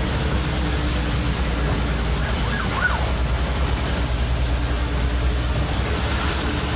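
Truck driving fast on a wet road: a steady low engine rumble under an even wash of road and rain noise. A thin, high whine comes in about three seconds in.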